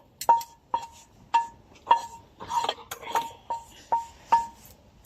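A metal spoon knocking repeatedly on the rim of a metal cooking pot or pan, about nine sharp clinks at roughly two a second, each with a short ring, to knock fried onion and carrot off into the soup.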